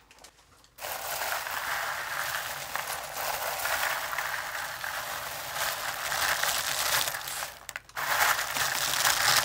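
A hand pressing and stirring down into a bowlful of styrofoam balls, the balls rubbing and shifting against one another in a dense, continuous rustle. It starts about a second in and breaks off briefly near the end before resuming.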